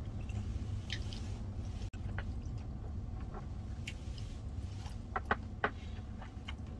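A person eating raw squid: soft chewing, with a few light clicks of wooden chopsticks against a stainless steel bowl about five seconds in, over a steady low hum.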